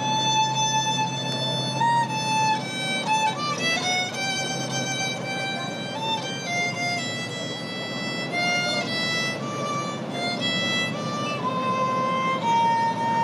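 Violin playing a melody of held and moving notes.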